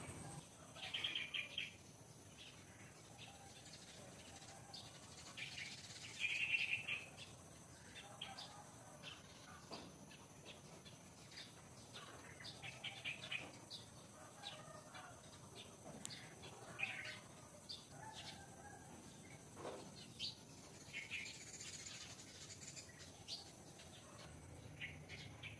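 Birds chirping in short high calls, with two louder bursts of chirping, about a second in and again about six seconds in.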